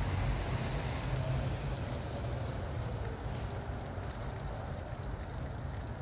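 Steady low rumble of distant road traffic with a faint hiss over it.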